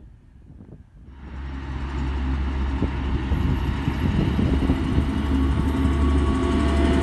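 Diesel engines of a DB Class 612 tilting diesel multiple unit running under power as the train passes close by. The sound starts suddenly about a second in, grows louder over the next two seconds and then holds, with a deep steady engine hum.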